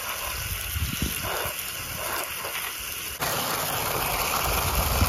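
Garden hose spray nozzle jetting water onto a pair of shoes in the grass, then filling a plastic bucket; the steady hiss of the spray gets louder about three seconds in as the water hits the bucket.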